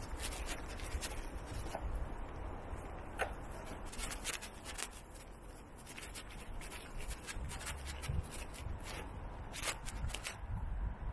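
Handling and rubbing noise on a small handheld gimbal camera's built-in microphone, with irregular sharp ticks and a low wind rumble.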